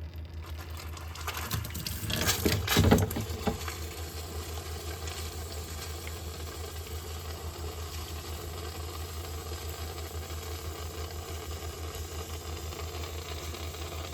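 Suburban RV water heater tank refilling with water after a flush, with a louder rush of water and air sputtering about two to three seconds in, then a steady flow under a constant low hum.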